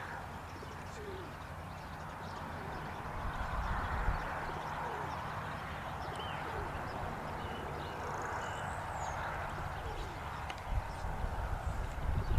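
Outdoor ambience dominated by wind rumbling on the microphone, heavier and gustier near the end, with a few faint bird chirps and the faint clip-clop of a harness horse trotting with a sulky.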